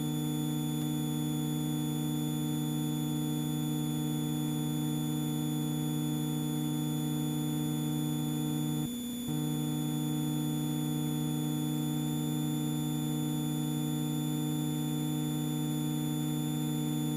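Steady drone of the Extra EA-200's engine and propeller at constant power in a climb, heard in the cockpit as an even hum of several fixed tones, with a brief dip about halfway through.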